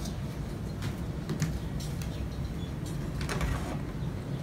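Quiet handling sounds: a few light knocks and a brief rustle or scrape about three seconds in, over a low steady rumble.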